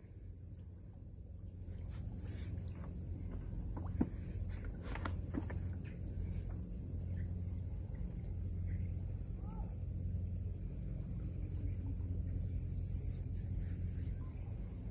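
Rural outdoor ambience: a steady high insect drone, with a short bird chirp repeated every few seconds over a low, even rumble, and a couple of faint knocks.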